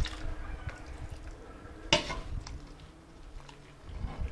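Cat feeding dishes being handled, with one sharp clink about two seconds in and fainter knocks around it.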